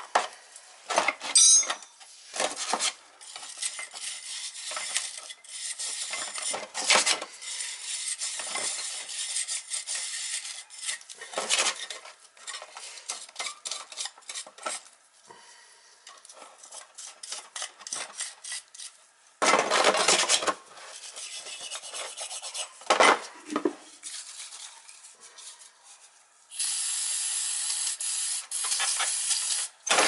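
Hand wire brush scrubbing oil burner parts, in irregular scratchy strokes, with metal parts clinking and clanking in a tray. A steady hiss starts in the last few seconds.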